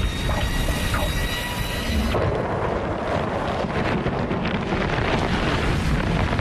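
Sandstorm wind: a deep, steady rumbling roar with a hiss of blowing sand. A music bed of held tones plays under it for the first two seconds, then cuts off.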